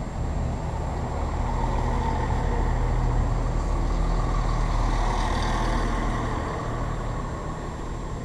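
Chiltern Railways Class 168 diesel multiple unit moving slowly along a platform, its underfloor diesel engines droning steadily with wheel and rail rumble. The sound grows a little louder in the middle as the coaches pass closest, then eases.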